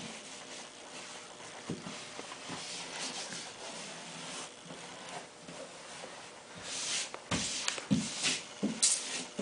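Faint rubbing and swishing of a hand smoothing a vinyl wall decal against the wall, with a few louder strokes and soft knocks in the last few seconds.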